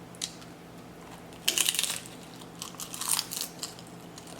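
Nacho tortilla chips crunching as they are bitten and chewed close to the microphone. A loud crunching bite comes about a second and a half in, followed by a run of shorter, quieter crunches of chewing.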